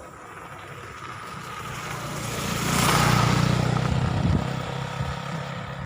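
A small engine passing by: it grows louder to its loudest about three seconds in, then fades away.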